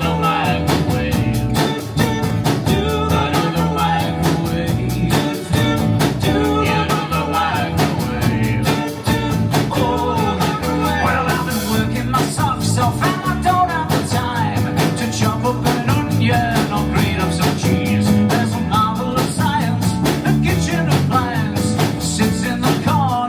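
Rock band playing live: an instrumental stretch with a steady, fast drum beat, bass, and a lead line with bending notes.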